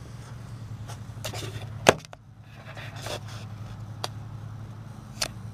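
Handling noise as the camera is moved and set down on the car's trunk lid: scraping and rubbing, a sharp knock about two seconds in, and lighter clicks later, over a steady low hum.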